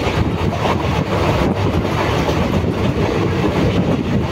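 Passenger train running at speed, heard from inside the coach: a steady rumble of the wheels on the rails.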